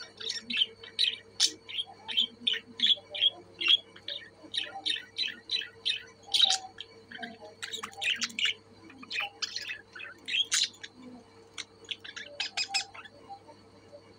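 Budgerigars chirping: a quick run of short, high chirps, several a second, with a brief lull near the middle, stopping shortly before the end. A faint steady hum runs underneath.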